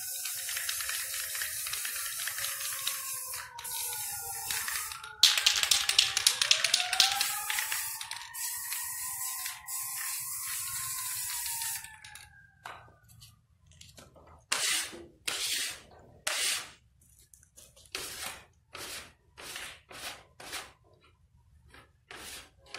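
Aerosol spray paint can hissing in long continuous sprays for about the first twelve seconds, loudest and rattly for a few seconds in the middle. After that, a run of short separate swishes, roughly one a second.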